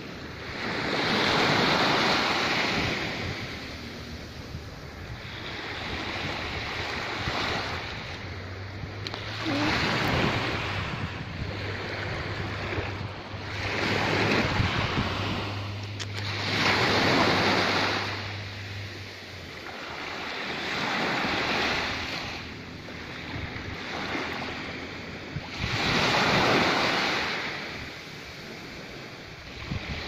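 Small waves breaking and washing up a sandy beach, the surf swelling and fading every few seconds.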